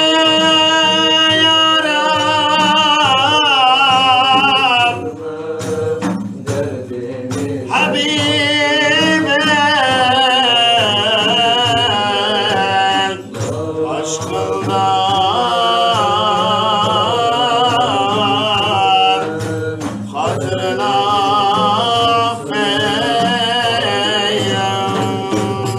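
Men singing a Turkish Sufi ilahi (devotional hymn) with a wavering, ornamented melody in long phrases broken by short pauses. Large hand-played frame drums keep a steady beat underneath.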